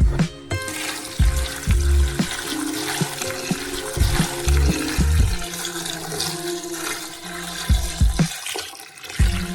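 Liquid pouring or running into a container, a steady splashing hiss that starts about half a second in and stops shortly before the end, over plucked guitar music.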